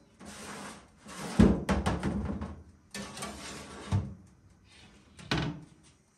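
Metal baking pans scraping over the wire rack of a countertop electric oven, with several sharp metal clunks. The loudest clunk comes about a second and a half in, and others come near four and five seconds.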